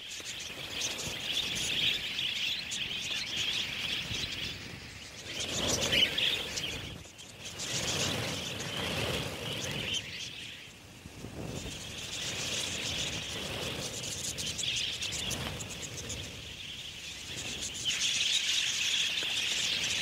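A flock of budgerigars chattering, a dense, continuous high twittering with brief lulls. A louder burst of fuller noise comes about six seconds in.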